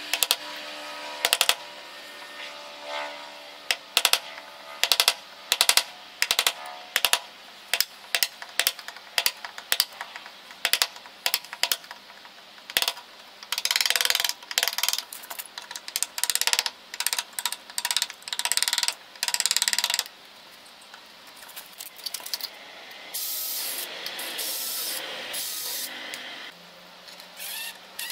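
Many sharp metallic clicks and knocks from hand tools working on a gate lock and its bolt, with several longer spells of hissing noise in the second half.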